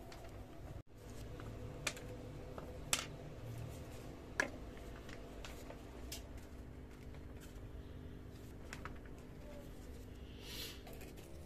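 A few sharp clicks and light taps from handling small parts and tools on a wooden workbench, three sharper clicks in the first half and fainter ticks later, over a steady low hum; a short soft hiss comes near the end.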